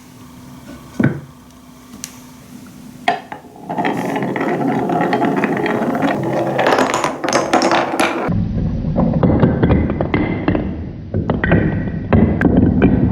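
Marbles rolling and clattering along a wooden marble run: a few separate clicks at first, then from about four seconds in a continuous rolling rattle full of small clicks as the marbles run over the wooden track pieces.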